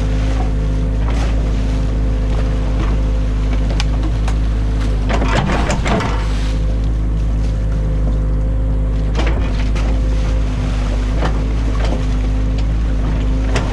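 Excavator engine running steadily, heard from inside the cab. Scrapes, knocks and splashes come and go as the bucket drags mud and sticks through the stream, busiest around the middle.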